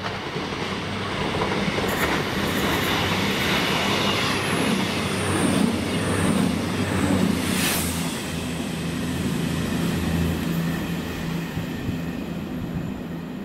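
A CrossCountry Voyager diesel train running through the station at speed without stopping: a rushing rumble of wheels on rail over a steady engine hum, with a few sharp clicks. It builds over the first couple of seconds and eases away toward the end.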